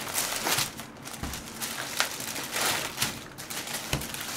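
Thin plastic carrier bag rustling and crinkling in irregular bursts as hands pull open a takeout bag, with a soft thump near the end.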